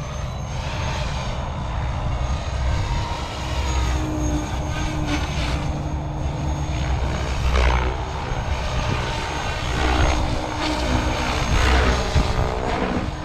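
Electric SAB Goblin RAW 580 RC helicopter flying in idle-up, its 580 mm main rotor blades whooshing over a steady motor whine. The pitch and loudness swell and fall several times as it manoeuvres and passes.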